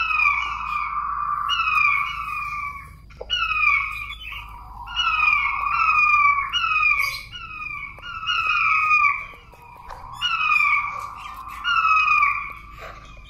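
Puyuh batu quails calling: phrase after phrase of short, falling whistled notes, a new phrase about every second to second and a half, swelling and fading in loudness. These are the calls used as a lure call for trapping puyuh batu.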